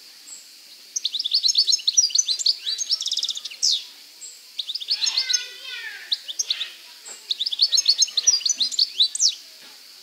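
European goldfinch singing: three bursts of rapid, high twittering song, each two to three seconds long, with short pauses between.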